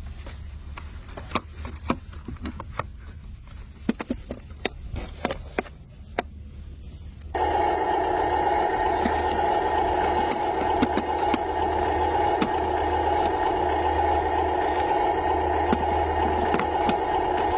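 Cartoon construction-machine sound effects: a low engine rumble with scattered knocks and clanks, then about seven seconds in a much louder steady machine noise starts abruptly and keeps running.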